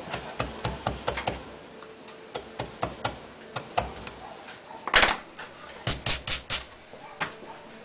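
Hand-pushed carving gouge cutting into a wooden board, a run of small clicks and snaps as the edge bites and chips break away. About five seconds in comes one louder knock, then a quick series of sweeps of a bristle brush over the carved wood.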